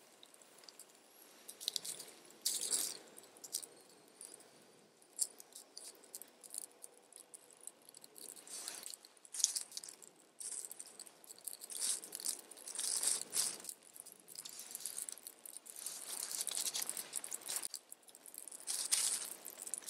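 Small fire of dry twigs crackling, with dry sticks being snapped and laid onto it in short bursts of snapping and rustling.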